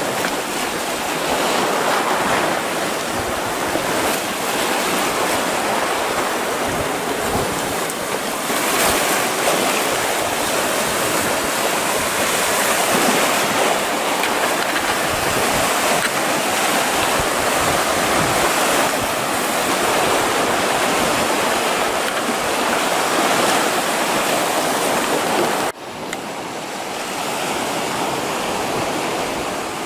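Small sea waves washing in over sand and stones between rocks, a steady surf wash. About 26 seconds in it drops suddenly to a quieter wash.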